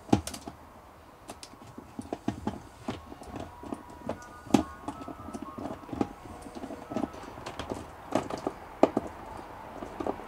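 Irregular small clicks and knocks of a screwdriver and cable ends being worked into the screw terminals of a DC-DC battery-to-battery charger. The sharpest click comes about four and a half seconds in.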